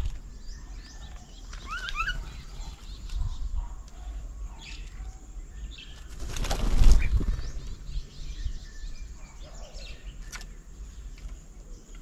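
Birds chirping and calling, with short rising chirps early on. About halfway through comes a rush of wing flapping that lasts about a second and is the loudest sound.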